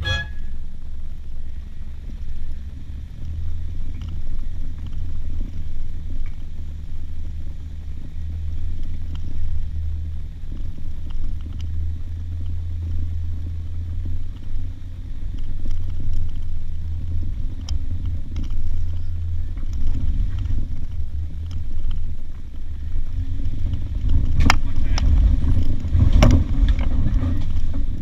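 Jeep engine running at low revs as it crawls up a steep, rocky dirt hill, a steady low rumble. Near the end it gets louder, with a run of knocks and thuds.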